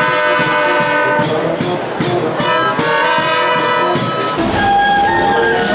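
Small brass band of cornets, tenor horn, trombone, euphonium and tubas playing a tune with a steady beat. About four seconds in the sound changes abruptly to a different passage of music.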